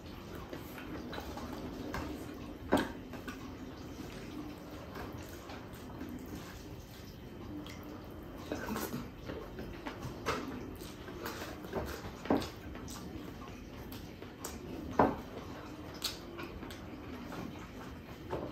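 Wet mouth sounds of a person eating with his hands: chewing, lip-smacking and sucking on fingers. Scattered sharp clicks and smacks rise above a low, steady background.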